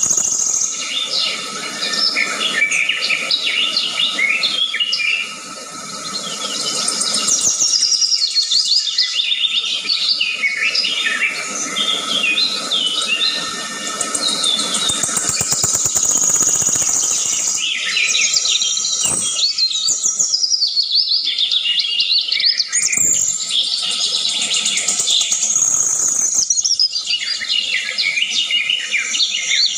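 Several birds chirping and singing at once in a busy, overlapping chorus, over a steady high-pitched tone in the background.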